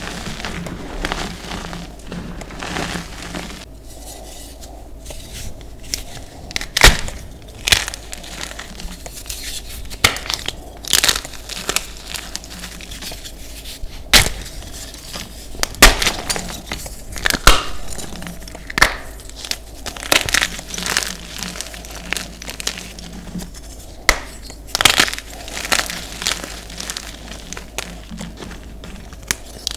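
Hands squeezing and crumbling soft, powdery pasted red gym chalk. After several seconds they snap and crush a fresh block of white gym chalk, giving a run of sharp cracks with crunching between them.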